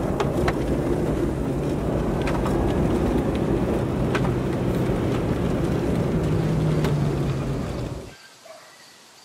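An SUV driving on a paved road: steady tyre roar and engine hum, cutting off sharply about eight seconds in.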